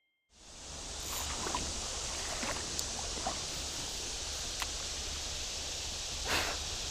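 Steady hiss of flowing creek water, starting abruptly about a third of a second in, with a few faint clicks scattered through it.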